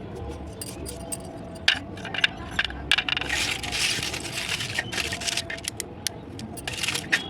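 Roasted brown clay being crunched: sharp cracks about a second and a half in and near three seconds, then a dense second or so of crunching, with scattered cracks and clinks after it.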